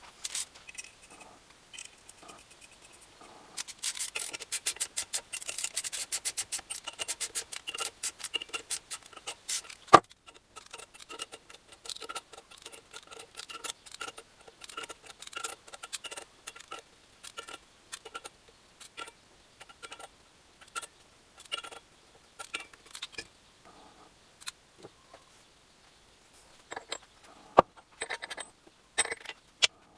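Metal tools and engine parts clicking and scraping on a workbench: a dense run of rapid clicks, one sharp knock about ten seconds in, then slower, fairly regular clicks with a slight metallic ring.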